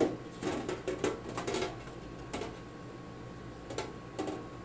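Stainless-steel wire racks clinking and knocking against the metal interior of a UV sterilizer cabinet as they are handled and fitted into place: irregular light metallic knocks, bunched in the first two seconds and again a couple of times near the end.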